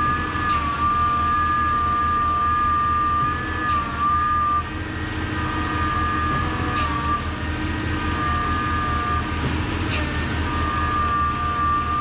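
Concrete boom pump truck running steadily: a constant engine drone with a high whine over it, and a short knock every few seconds.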